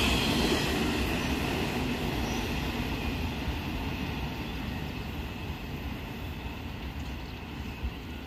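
The last cars of a Norfolk Southern double-stack intermodal freight train rolling away, the rumble of its wheels steadily fading.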